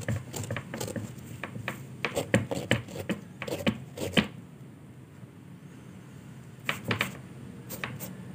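Microfiber cloth rubbing and wiping over a white sneaker, with the shoe handled: a quick run of short scratchy scuffs, a quieter stretch in the middle, then a few more scuffs near the end.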